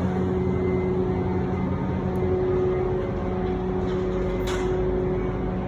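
Steady drone of running machinery, with a constant low hum and a thin higher tone held throughout.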